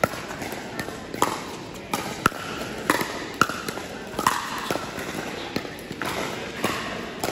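Pickleball rally: paddles striking a hard plastic ball and the ball bouncing on the court, about ten sharp pocks spaced irregularly, a few with a short ringing ping. The hits echo in a large indoor hall.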